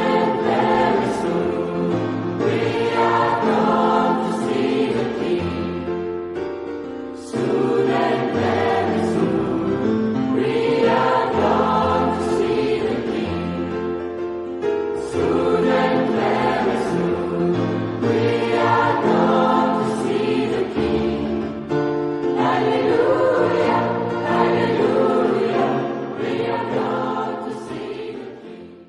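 A choir singing a sacred piece in sustained harmony, in repeating phrases of about seven to eight seconds. It fades out at the end.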